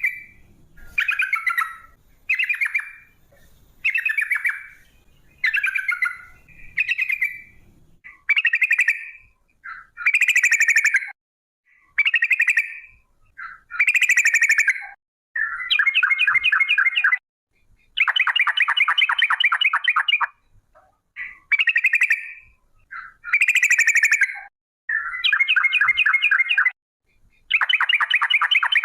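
Yellow-vented bulbul singing: short bubbling phrases about every second and a half, turning in the second half into longer phrases of rapid repeated notes, each about two seconds long, the long rolling 'ropel' trill.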